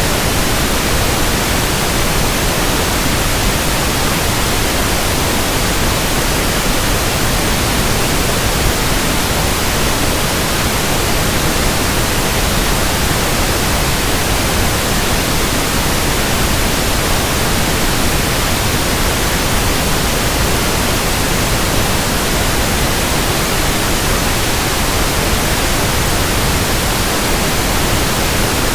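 Steady pink noise test signal: an even, unchanging hiss across the whole frequency range, used for measuring a speaker's or room's frequency response.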